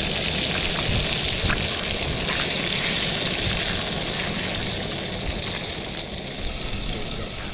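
A steady hiss, with a few faint clicks of a spoon against a metal mess tin.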